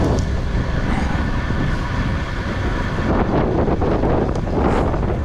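Wind rushing and buffeting over the microphone of a camera riding on a moving bicycle: a steady noisy rumble with no distinct events.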